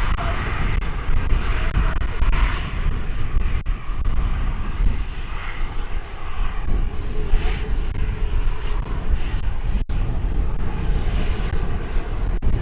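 Boeing 737-300 jet engines running as the airliner taxis on the runway, with gusty wind buffeting the microphone.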